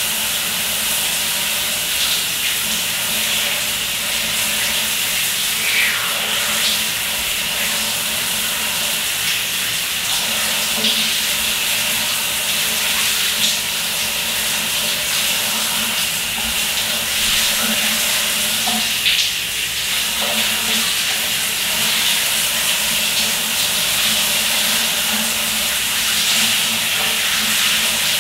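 Shower running: a steady hiss of water spray falling in a tiled shower stall onto a person standing under it, with a few small splashes.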